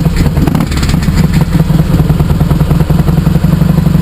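Harley-Davidson Heritage Softail's fuel-injected 88-cubic-inch V-twin running with a deep, steady rumble, over which a tinny rattle comes from the exhaust: the baffle in the pipe is worn, loose and rusted out.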